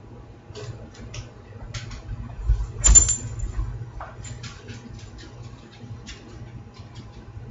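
A large poodle jumping up onto a kitchen countertop: a heavy thump with a sharp click as it lands, about three seconds in. Before and after come the light taps and clicks of its claws on the counter.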